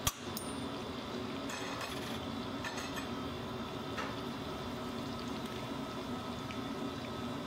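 A pot of meat and vegetables in broth simmering steadily on the stove, with a sharp click right at the start and a few light clinks of a fork against the pot between about one and a half and three seconds in.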